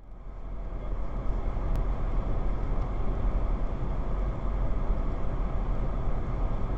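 Steady road and tyre rumble inside a moving Polestar 2 electric car, heavy in the low end, as picked up by a dashcam's microphone; it starts suddenly and builds over the first second.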